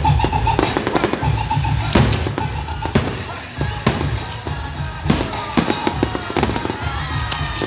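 Aerial firework shells bursting in a string of sharp bangs, the loudest about two seconds in, over loud music with a pulsing bass beat playing for the pyromusical show.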